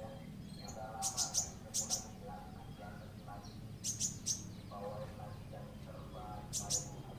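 Songbirds chirping in full song: clusters of short, sharp, high chirps a few times, over lower, quicker twittering and a steady low hum.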